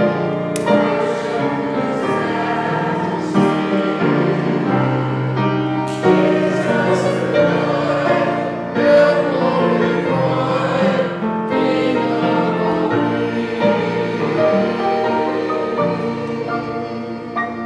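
Small church choir singing a hymn in a reverberant sanctuary, the music fading away near the end.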